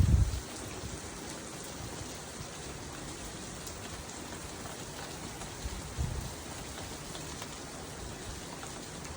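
Steady rain falling, an even hiss, with a few brief low thumps, loudest right at the start and again about six seconds in.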